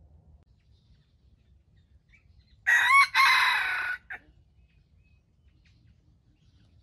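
A red junglefowl rooster crowing once, a short crow of about a second and a half, broken by a brief dip near its start.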